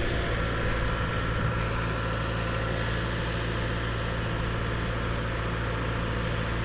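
Diesel engine of a JCB 3DX backhoe loader running at a steady idle, a constant low hum with no revving.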